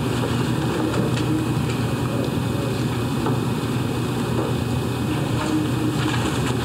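Steady low hum and hiss of room noise, with a few faint clicks.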